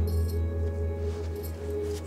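Background film music: a sustained low bass note with soft held notes above it.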